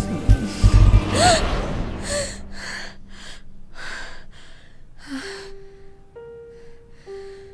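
A girl gasping, then a run of quick, heavy breaths that weaken and stop about five seconds in, over a few low thuds at the start. Sparse, held music notes follow.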